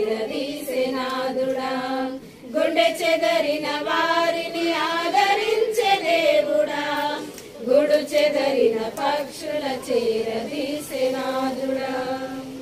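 A group of women singing a Telugu Christian hymn together from songbooks, with long held notes; a final held note closes the phrase near the end.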